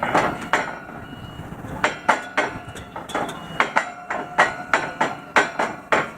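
Steel forklift forks clanking against the carriage as they are worked into place: a run of sharp metallic knocks, some with a brief ring, coming about two a second from about two seconds in.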